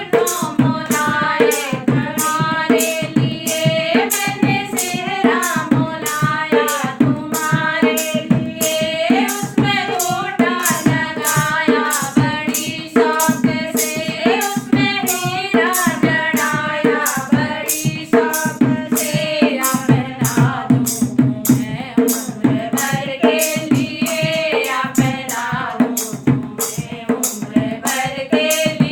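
A woman singing a Hindi banna-banni wedding folk song to a hand drum that keeps a steady, quick beat.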